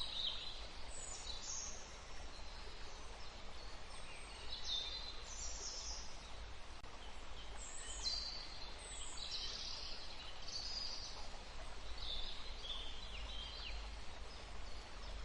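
Forest ambience: a stream's steady rushing with small birds singing short, high chirping phrases every second or so, over a low rumble.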